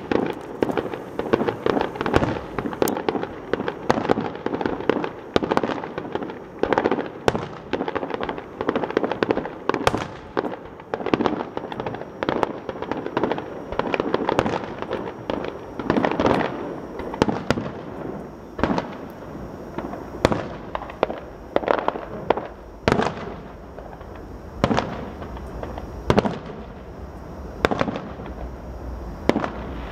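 Aerial firework shells bursting: a dense run of bangs over the first half or so, thinning out to separate booms a second or two apart.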